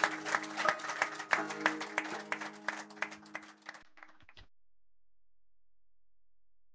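Background music with rapid, sharp percussion over held notes, which stops abruptly about four seconds in.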